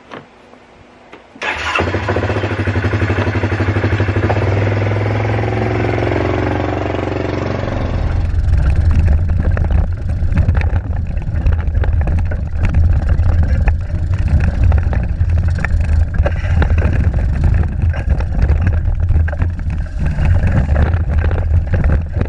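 Yamaha Grizzly ATV engine starting about a second and a half in and idling steadily. From about eight seconds the ATV is being ridden, its engine running louder and rougher under load with many small knocks from the rack and stand.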